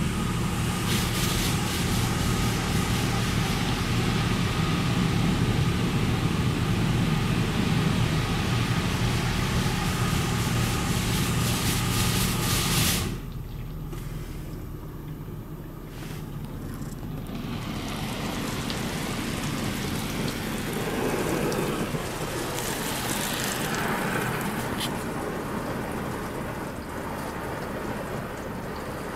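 Water Wizard 2.0 automatic car wash spraying clear coat protectant over a van, heard from inside the cabin: a loud, steady rush of water against the body over a low pump hum. The rush cuts off suddenly about 13 seconds in, then quieter spraying sweeps back over the vehicle.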